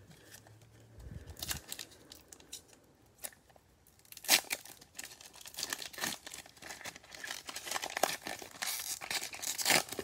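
A foil trading-card pack wrapper being torn open and crinkled by hand. There is light handling at first, then from about four seconds in a sharp tear followed by continuous crackling and ripping of the wrapper.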